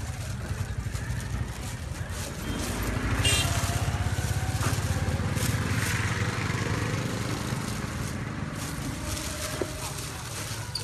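A small engine running with a steady low pulse, growing louder about three seconds in and then slowly fading as it passes.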